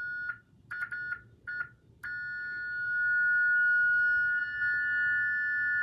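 Two Ademco 702 security-alarm sirens sounding together: a few short beeps in the first couple of seconds, then from about two seconds in both hold a steady tone, two close pitches in harmony, which cuts off sharply at the end.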